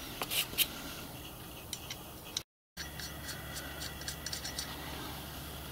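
Small metal gas-burner parts clicking and tapping against one another as they are handled and fitted together. There are a few light clicks at first, then a quicker run of ticks in the second half, over a low steady hum. The sound cuts out briefly near the middle.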